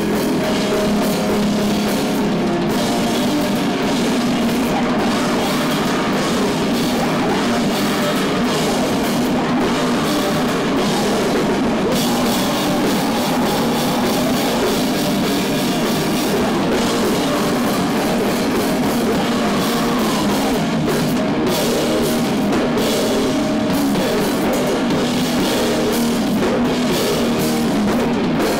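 A live heavy rock band playing loud and without a break: an electric guitar and a drum kit with cymbals being struck.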